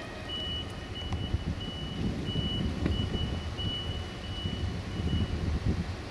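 Repeated high electronic warning beeps, uneven in length, stopping shortly before the end, over the low rumble of a Siemens Desiro diesel multiple unit standing at the platform.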